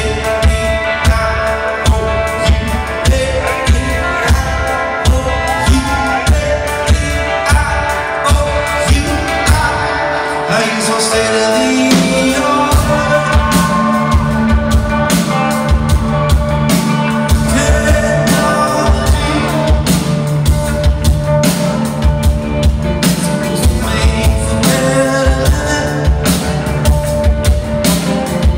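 Live rock band playing: electric guitar, a drum kit keeping a steady beat, and a singing voice. About ten seconds in, low bass notes come in and the sound fills out.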